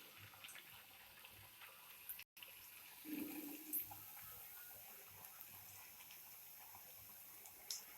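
Near silence: faint room tone with a few light clicks and a brief low sound about three seconds in.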